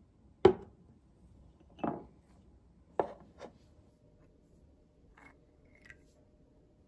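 Ceramic dishes being set down and shifted on a wooden serving tray: four short knocks in the first three and a half seconds, then a couple of faint clinks.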